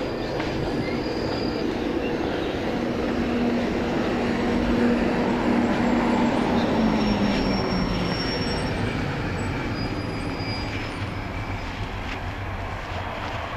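London Underground train running on the rails: a steady rumble of wheels and track with faint high squeals. A low hum comes in a few seconds in and dips slightly in pitch about seven seconds in, and the whole sound swells toward the middle and then eases.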